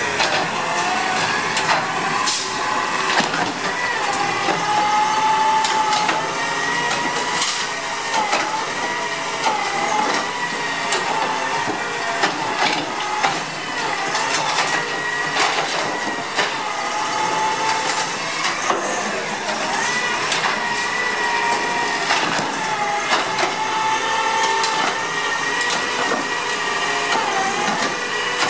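CNG Autocar ACX garbage truck with a Dadee Scorpion automated side-loader running, its engine and hydraulics whining and rising and falling in pitch as the arm reaches out, grips a cart and lifts it to dump, with scattered sharp knocks and bangs of the cart and arm.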